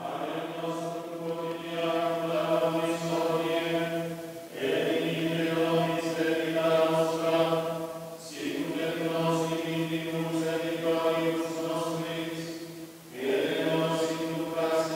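Franciscan friars singing Latin plainchant together, in four long phrases with short breaks between them, over a steady low hum.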